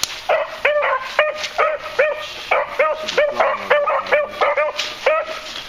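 Beagles giving tongue while working a scent: a quick run of short, high yelps, about three a second.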